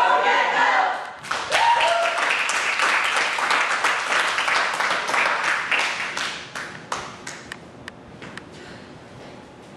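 A small group clapping together: dense applause that starts about a second in, thins out about seven seconds in and ends with a few scattered single claps.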